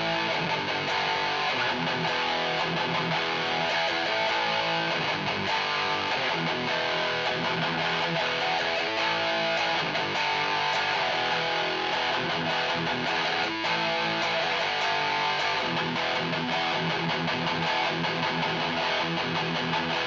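Electric guitar played through its bridge pickup, a Seymour Duncan Blackout active pickup, into a Peavey 6505 Piranha amp and 1x8 cabinet, playing metal riffs with a distorted tone at a steady level.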